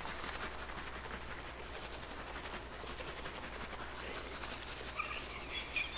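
Water bottle being shaken continuously, a rapid scratchy sloshing rattle, as part of a binaural 3D-audio recording.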